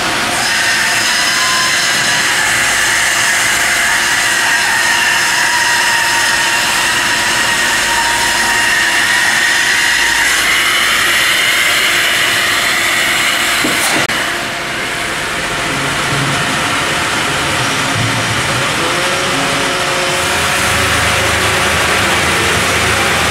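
Sawmill machinery, a horizontal bandsaw line with a vacuum board lifter, running steadily with a high whine that climbs slightly about ten seconds in. The sound changes abruptly about fourteen seconds in, and a low hum comes in near the end.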